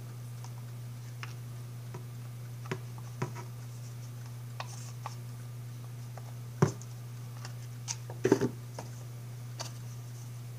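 Scattered small clicks and knocks of a plastic solar garden light's cap and housing being handled and fitted together, the loudest a sharp knock a little past halfway, with a short cluster of clatter later on. A steady low hum underlies it all.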